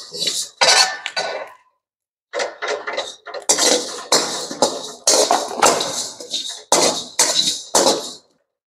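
Whole wheat grains being dry-roasted in a metal karahi, stirred with a perforated metal skimmer: repeated scraping strokes of the spoon across the pan, with the grains rattling and sliding over the metal. There is a short break about a second and a half in.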